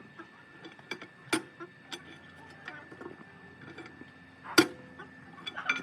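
Irregular sharp clicks and knocks of tools working on a tractor wheel during a tyre change, a few seconds apart, the loudest about four and a half seconds in.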